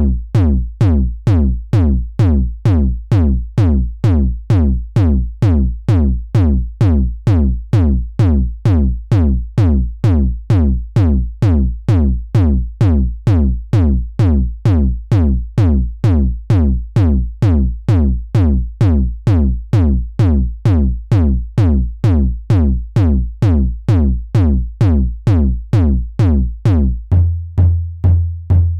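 Kick drum samples struck one after another, about two hits a second, each a deep thud with a quick downward pitch sweep. Near the end it switches to a different kick with a slightly higher, fuller low note.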